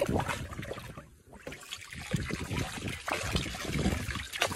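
Water splashing and trickling in a dog's paddling pool as a garden hose runs into it and a dog moves about in the water.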